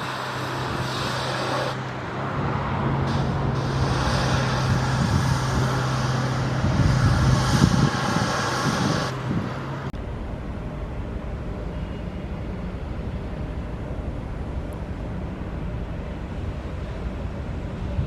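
An engine running with a steady low hum over traffic-like noise. About ten seconds in the sound cuts abruptly to an even low rumble of wind on the microphone.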